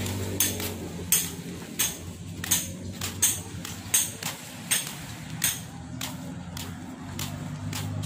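Footsteps on a paved walkway at a steady walking pace, about one and a half steps a second, over a steady low hum.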